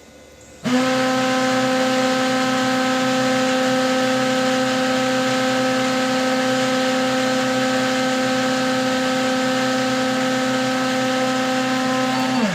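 Brother MFC-7360 laser printer's main motor and gear train running during a print job, a loud steady hum with a clear pitch that starts abruptly about a second in and winds down in pitch near the end. The machine runs without pulling in the paper, the gear noise fault traced to a worn main motor gear unit.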